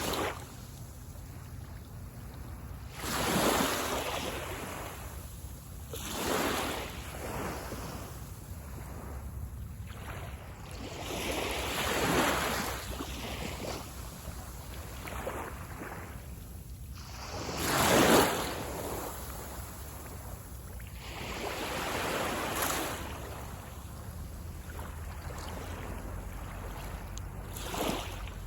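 Sea waves breaking and washing up on a beach shore, one surge every few seconds, the loudest about two-thirds of the way through, over a steady low rumble.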